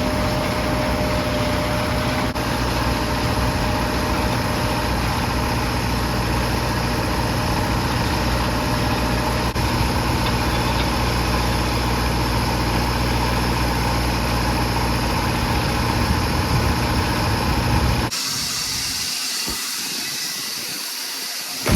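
A machine's engine running steadily. About eighteen seconds in, it cuts off abruptly and is replaced by a steady hiss.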